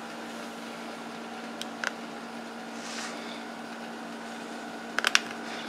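Steady low hum and room noise, with a few light clicks, most of them in a quick cluster about five seconds in.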